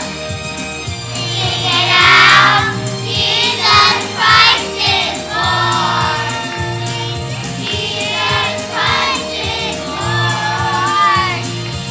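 Children's choir singing a Christmas song with instrumental accompaniment and a steady beat.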